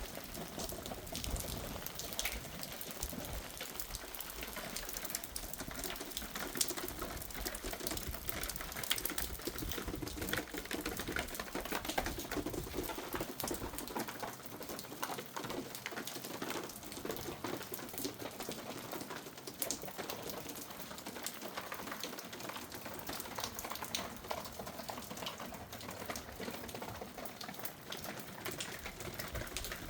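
Hailstones pelting down, a dense, irregular patter of small ticking impacts.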